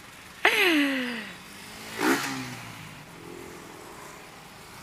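Scooter ride through busy street traffic, with a steady hum of engines and tyres. About half a second in a loud high sound falls steeply in pitch over about a second, and a shorter falling one follows about two seconds in.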